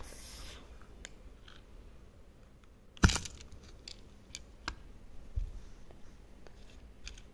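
Small hinged jewellery box with a leatherette cover being opened by hand: a soft rustle of handling, then one sharp click about three seconds in as the lid snaps open, followed by a few faint clicks.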